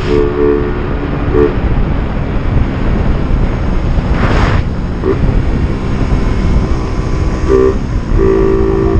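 Suzuki Raider 150 Fi riding at highway speed, wind rushing over the microphone on top of the engine. A horn sounds in steady-pitched blasts: a long one at the start, short ones about five and seven and a half seconds in, and another long one near the end.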